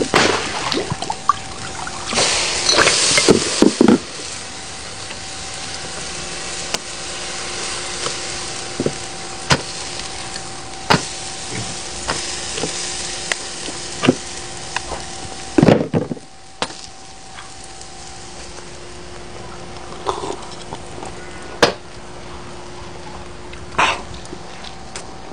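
Burger patties sizzling on a small charcoal grill, with scattered clicks and knocks from handling the food; the sizzle drops away about two-thirds through. A bite into the burger near the end.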